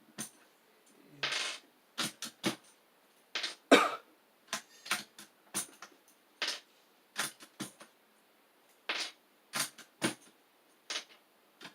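Keys on a mechanical keyboard fitted with rubber keycaps being pressed one at a time: a string of separate clicks at irregular spacing, about one or two a second, the loudest a little under four seconds in.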